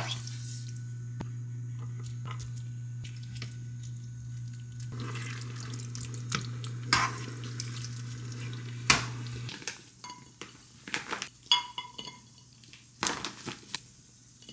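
Kitchen cooking sounds: a steady low hum that cuts off about two-thirds of the way through, under a steady hiss, with scattered clinks and knocks of utensils and dishes that become more frequent after the hum stops.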